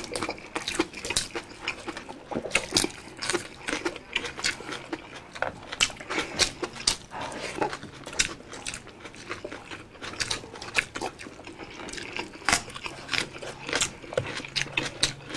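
Close-miked eating sounds: wet chewing and lip smacking, with fingers handling soft boiled beef and vegetables, making a steady stream of irregular moist clicks.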